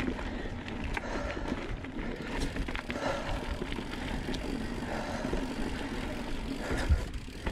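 2019 Santa Cruz Blur C S mountain bike riding down a dirt singletrack: tyre noise on the dirt with frequent small knocks and rattles from the bike, and one louder thump near the end.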